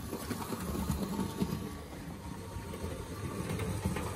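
Hornby OO gauge model steam locomotive running along the track under its own power: a steady motor-and-wheel rumble with faint rattling, from a brand-new loco being run in.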